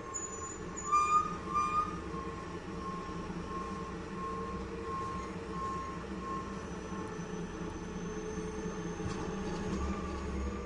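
Forklift running with its reversing alarm beeping at a steady pace, a little under two beeps a second, over a low engine hum. Two louder beeps come about a second in, and the alarm stops about two-thirds of the way through while the hum goes on.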